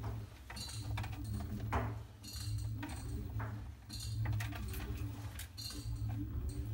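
A ferret's claws and a spiky plastic dryer ball scraping and clinking against the stainless-steel drum of a clothes dryer in repeated short scuffles, over a steady low hum.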